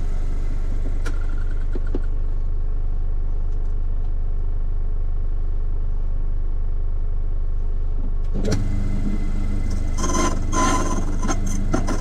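Cyclone key-cutting machine's motor humming steadily. Near the end come light metallic clicks and clinks as keys are handled and clamped in the machine's jaws.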